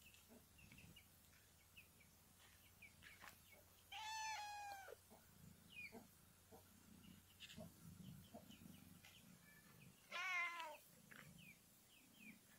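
Domestic cat meowing twice: a meow about a second long with a fairly steady pitch about four seconds in, and a shorter one with a wavering pitch about ten seconds in.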